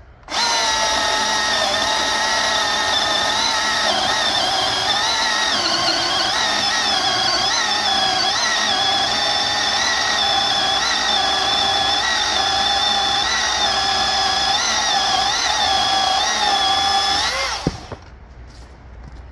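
Milwaukee M18 Fuel battery chainsaw cutting through a thick log: a loud, steady motor-and-chain whine whose pitch repeatedly sags and recovers as the chain bites into the wood. It starts about half a second in and stops suddenly near the end.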